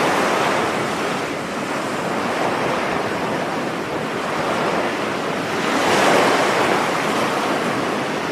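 Steady rushing noise that swells and eases, loudest around six seconds in.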